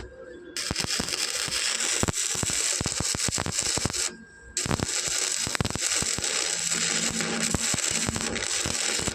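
Electric arc welding crackling, a dense run of sharp clicks over a hiss, broken off briefly near the start and again about four seconds in.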